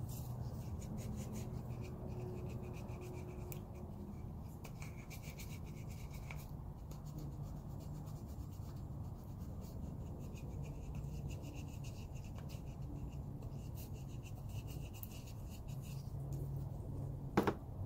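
Faint rubbing and scratching handling noises over a low steady hum, with one sharp click near the end.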